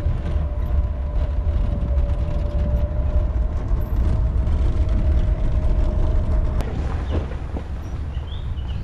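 Safari vehicle driving along a forest track: a steady low engine and road rumble, with a constant whine that cuts off about six and a half seconds in.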